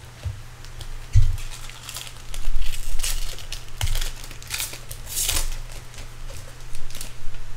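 Foil trading-card pack wrapper crinkling and tearing in the hands as a pack is opened: a run of irregular crackles, with a few soft low thumps of handling.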